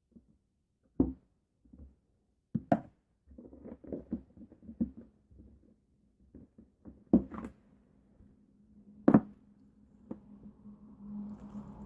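Objects being handled and set down on a hard surface: sharp knocks about a second in, near three seconds, at about seven and nine seconds, with softer fiddling and handling noises between.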